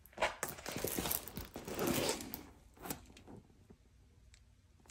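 Crinkling and rustling of a diamond-painting canvas and its clear plastic cover film as it is handled and lifted, for about two and a half seconds, followed by a few faint ticks.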